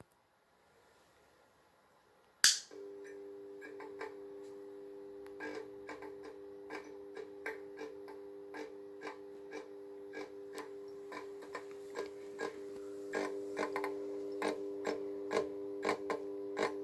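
A loud switch click about two seconds in, then the fitting's ballast hums steadily while the glow starter clicks over and over, about twice a second, trying to strike a worn-out Philips TLD 18W/33 T8 fluorescent tube. The tube never lights; only its electrode ends glow, the sign of an end-of-life lamp.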